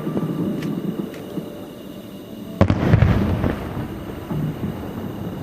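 Aerial firework shells bursting: a few faint pops over the fading rumble of an earlier burst, then a sudden loud boom about two and a half seconds in, its low rumble rolling away over a couple of seconds.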